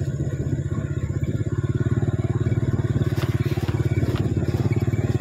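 A small motorcycle engine running steadily at low road speed, a rapid even putter, with a couple of light knocks past the middle.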